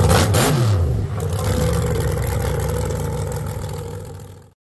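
The King Sling monster truck's 1,500-horsepower engine dropping in revs within the first second, then running at low revs. The sound fades out near the end.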